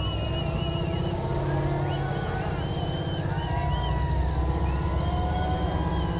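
Off-road wrecker's engine running steadily under load as it climbs a steep rock chute towing another vehicle, with voices from the crowd calling out over it.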